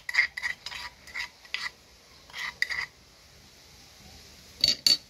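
A metal spoon scraping crushed garlic out of a wooden mortar in a series of short scrapes, then two sharp clinks of the spoon near the end.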